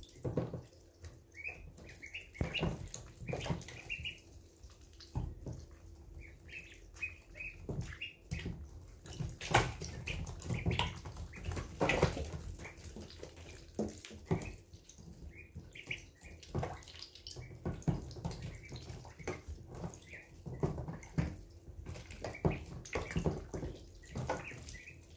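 Week-old ducklings drinking and dabbling at a waterer and feed bowl: wet splashing and quick taps of bills in the water and feed, with runs of short high peeps now and then.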